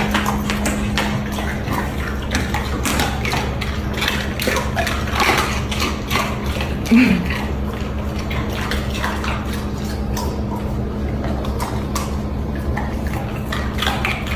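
Golden retrievers crunching and chewing ice cubes: an uneven run of crisp cracks and crunches, over a steady low hum.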